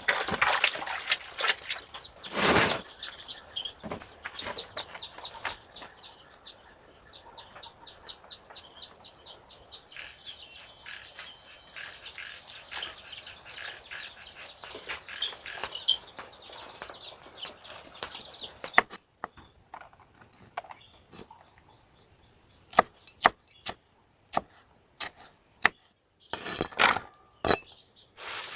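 Insects droning in a steady high pitch, with many light knocks and taps. About two-thirds of the way through the drone cuts off, leaving scattered sharp knocks.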